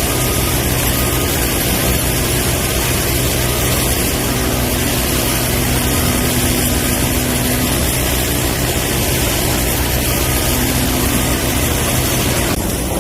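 Large 80-ton excavator's diesel engine running steadily under load, with a steady higher tone coming in for a few seconds twice. The sound changes abruptly just before the end.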